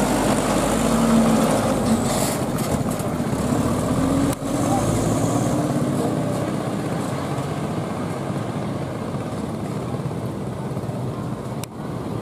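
Motor vehicle engine running steadily on the move, with road and wind noise. A steady hum is clear in the first few seconds, then it gives way to a more even rushing noise.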